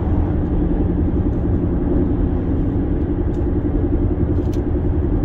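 Steady road and engine noise inside a car driving along a highway: an even low rumble.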